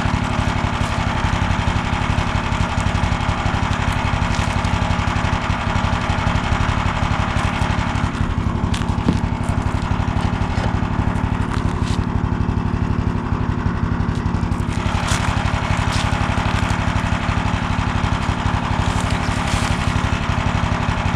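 A small engine running steadily and close by, a fast even putter with no change in speed.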